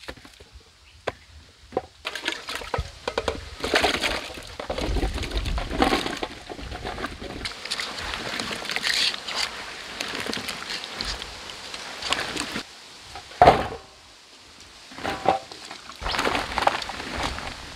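Peeled raw bananas being moved by hand in a steel bowl with water, a run of wet splashing and bananas knocking against each other and the bowl. A single loud knock comes past the middle, and near the end the bananas tumble out of the bowl onto banana leaves.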